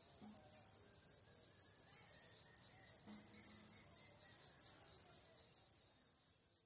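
Insects trilling in a shrill, rapidly pulsing chorus, fading near the end.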